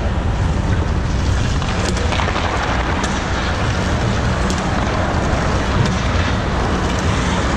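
Steady low rumble and hiss of an indoor ice rink, with a few sharp clicks of sticks and puck from hockey play at the far end of the ice.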